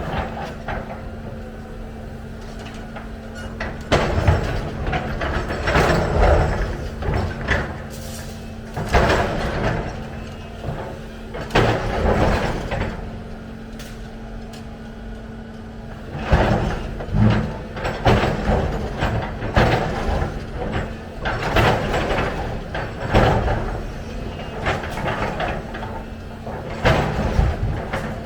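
Volvo EC300 excavator working: a steady engine hum under repeated bursts of scraping and clatter, coming every second or two.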